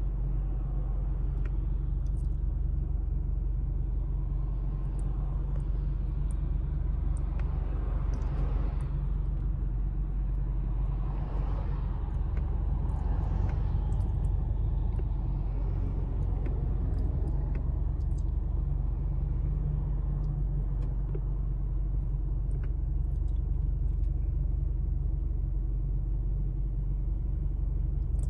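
Street traffic: a steady low rumble, with passing cars swelling louder twice in the middle.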